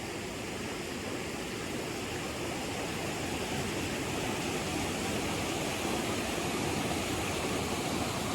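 Shallow brook water rushing steadily over rocks, slowly growing louder.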